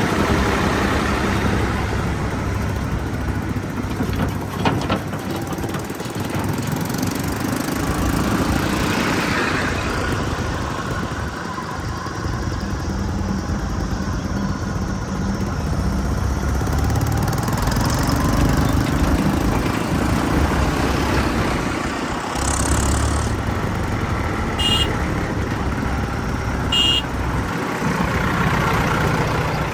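Heavy diesel machinery engine running under changing load, its revs rising and falling. Two brief high squeaks come near the end.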